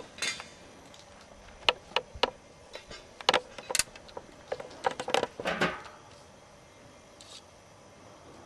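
A scattering of light clicks and knocks of small hard objects being handled, about a dozen in the first six seconds, then only a faint hiss.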